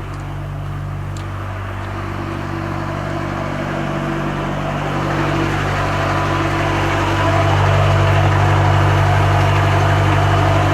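A truck's diesel engine running steadily, getting louder from about seven seconds in.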